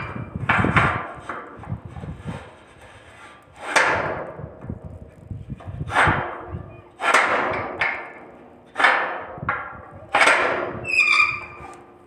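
Horror sound effect of a series of heavy bangs and thuds, about ten of them at uneven intervals, each fading out with a short echoing tail. Some carry a ringing, metallic tone, the last one most clearly.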